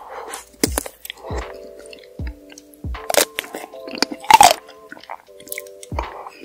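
Chocolate-coated ice cream bars bitten and chewed close to the microphone: a string of crisp cracks as the hard shell breaks, then crunching and chewing, loudest about four and a half seconds in. Background music plays underneath.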